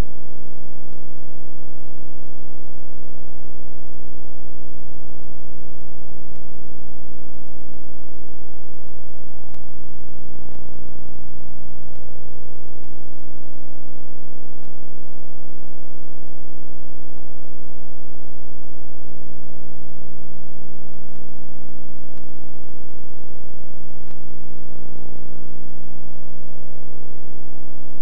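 Loud, steady electrical hum with many overtones, unchanging except that one low band grows a little louder about two-thirds of the way through; no game sound is heard.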